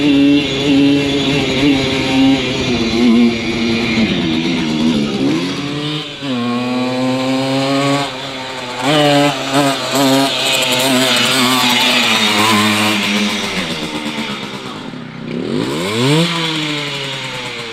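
Simson moped's two-stroke engine running and being revved: short throttle blips at first, then the pitch rises sharply twice as it is opened up.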